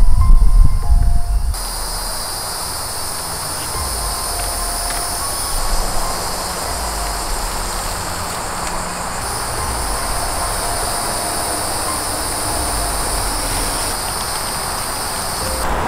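Shrill, steady insect chorus from the woods, over a low rumble.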